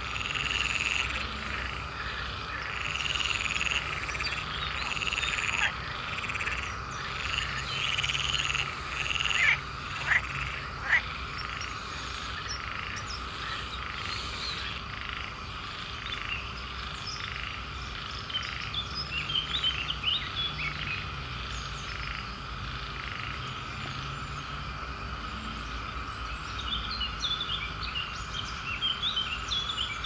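A chorus of swamp frogs calling at night: repeated croaking calls about once a second over a steady droning chorus, giving way in the second half to quicker, higher chirping calls.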